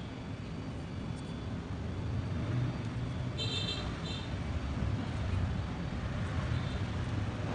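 Steady low background rumble, with two brief high-pitched chirps about three and a half seconds in.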